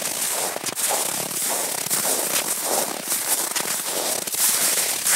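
Footsteps crunching through crusted snow at a steady walking pace, a loud crackly crunch with each step.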